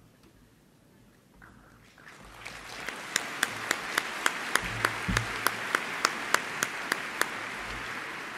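Audience applauding, starting about two seconds in and holding steady, with one set of sharp claps at an even pace, about three a second, standing out above the rest through the middle.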